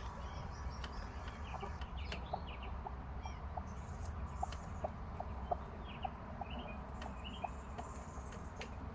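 Chickens clucking softly in short, repeated clucks, about two a second, over a steady low hum.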